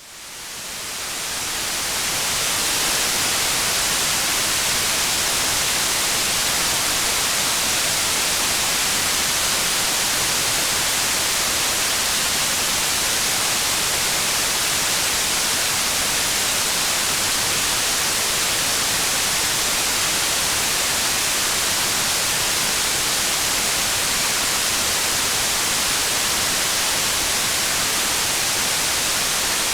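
Steady, even hiss of heavy rain, bright and high-pitched, fading in over the first couple of seconds and then holding unchanged.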